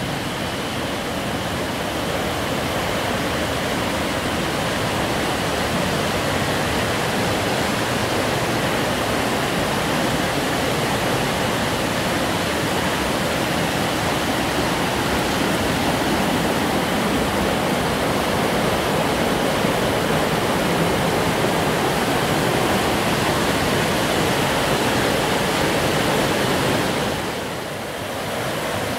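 Steady rush of a mountain stream's water over rapids, with a brief dip in loudness near the end.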